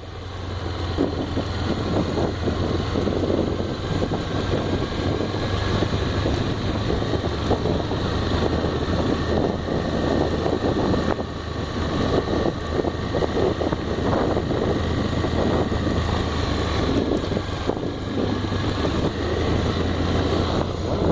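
Honda XRE motorcycle's single-cylinder engine running at a steady pace while riding, with wind rushing over the microphone.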